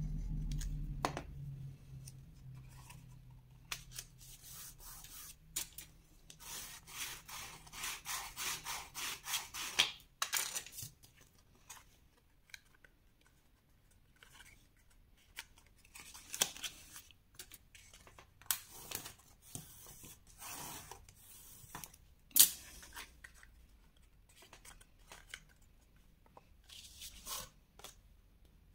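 Kraft cardstock being handled, folded and pressed flat: paper rubbing and rustling, with a stretch of quick rubbing strokes and scattered taps and clicks, one sharp click standing out later on.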